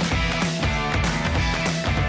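Background music: rock with guitar and a steady beat.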